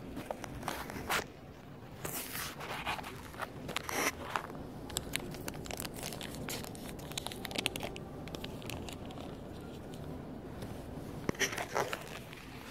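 Small clear plastic bags crinkling and rustling as they are handled, in irregular bursts with a cluster of sharper crackles near the end.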